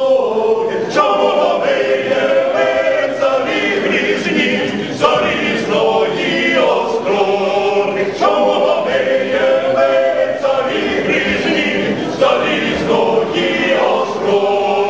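A choir singing a cappella: several voices in harmony, in short phrases with brief breaks between them.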